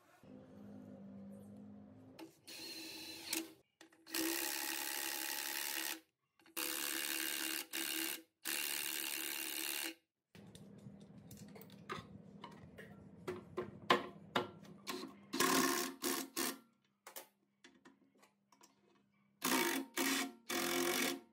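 A small electric power tool running in several bursts of a couple of seconds each, stopping briefly between them. It is followed by a low steady hum with scattered clicks and knocks of hand work on metal parts.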